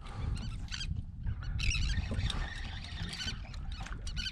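Fishing reel being cranked in short spells of rapid clicking while a hooked fish is played, over a steady rumble of wind on the microphone.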